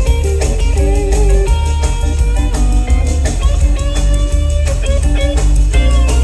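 Live rock band playing: a hollow-body electric guitar plays changing melodic lines over a heavy bass and drum groove, with no vocals.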